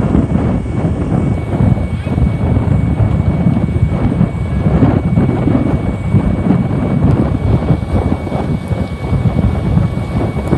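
Wind buffeting the microphone: a loud, rumbling, gusting rush, with a faint steady high whine underneath.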